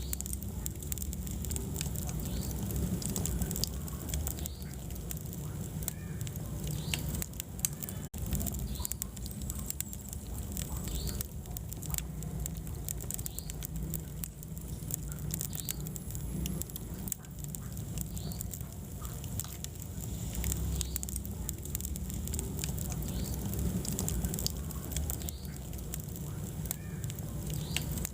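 Wood fire burning in a fireplace: a low rumble of flames with frequent sharp crackles and pops. The sound cuts out for an instant about eight seconds in.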